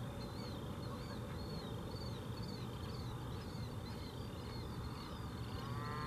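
High, arched chirping calls repeat about twice a second over a low steady background. Near the end a cow starts a long moo.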